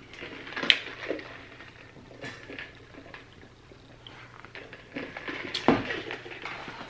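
A lidded plastic cup handled and sipped from through a straw: small clicks and rustles of the plastic, with a sharper click about 5.6 s in as the cup is set back down on the table.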